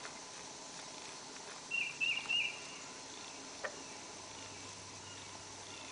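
Quiet outdoor ambience with a faint steady insect hum. A short run of bird chirps comes about two seconds in, and a single faint click follows a little later.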